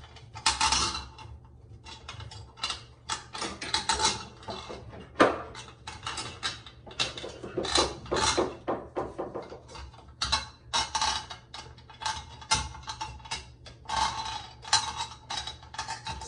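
Shower valve trim plate being shifted against the tiled wall while its long mounting screws are probed for their holes: many short, irregular metallic scrapes and clicks, some with a brief ring.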